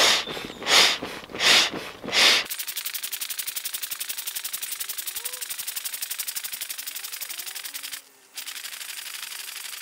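Built-in hand pump of a Trekology Aluft UL140 inflatable sleeping mat being pressed by hand: a rhythmic rush of air with each stroke, about one stroke every 0.7 s. About two and a half seconds in, the sound is sped up and the pump strokes run together into a fast, even rattle of about ten a second, with a brief dropout near the end.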